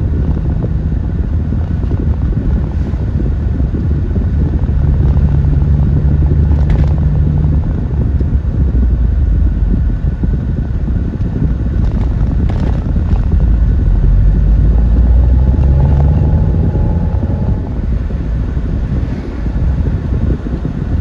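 MG TF being driven, heard from inside the cabin: steady engine drone and road rumble, with a couple of brief knocks near the middle.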